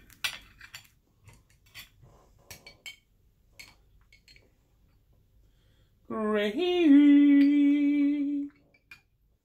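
A metal spoon clinks and scrapes against dishes and a jar a number of times while food is spooned onto a plate. About six seconds in, a man's voice slides up into one long held note for about two seconds.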